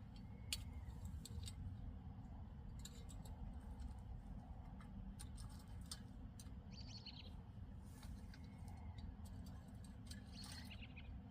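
Faint outdoor ambience: a steady low rumble with scattered small clicks and ticks, and a bird chirping briefly twice, about seven and ten and a half seconds in.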